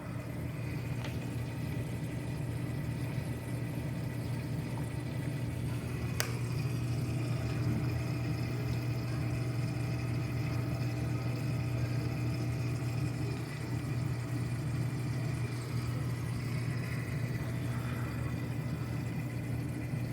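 Sun Sun CHJ-3000 aquarium sump return pump running with a steady low hum, along with the hiss of circulating water in the saltwater tank's sump. There is a single sharp click about six seconds in.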